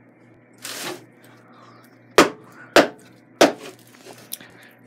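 Demolition impacts: a brief scraping rustle, then three sharp blows a little over half a second apart, each with a short ringing tail, and a few light knocks of debris after.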